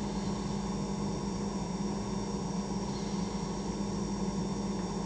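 A steady low hum with a faint hiss behind it, even throughout; the slow pour of thick soap into the funnel makes no sound that stands out.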